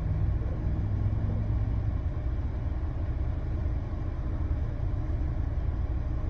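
Car engine idling, a steady low rumble heard inside the cabin while stopped at a red light.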